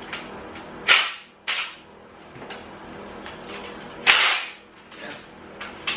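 Hand tools working the exhaust manifold bolts on a 350 small-block Chevy Vortec engine: sharp metallic cracks about a second in, again half a second later, and about four seconds in. A low steady hum runs underneath.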